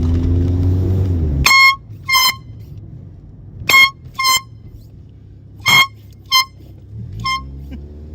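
Cheap handheld air horns let off in short blasts, mostly in pairs: three pairs of brief, loud, high blasts about two seconds apart, then a fainter single one. A car engine revs up at the start and drops away as the first blast sounds, then picks up again near the end.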